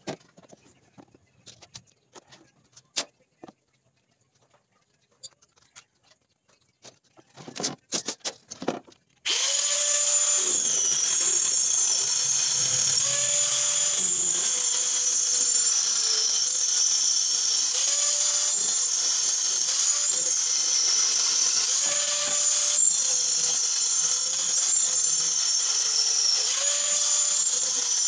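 A few light clicks and knocks, then about nine seconds in a corded angle grinder switches on and runs steadily, cutting through plywood. Its high whine sags briefly every two to three seconds as the disc bites into the wood.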